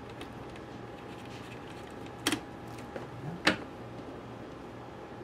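Two sharp clicks about a second apart, with a few fainter ticks, from small screws and a screwdriver being handled on a laptop's metal case and a wooden desk. A steady low hum runs underneath.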